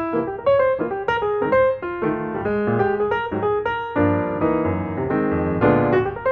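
Background piano music, a quick run of separate notes struck one after another.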